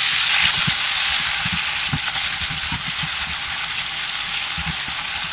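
Chicken pieces sizzling as they fry in hot oil on high heat, a steady hiss, with a few low taps as a silicone spatula turns them in the pan.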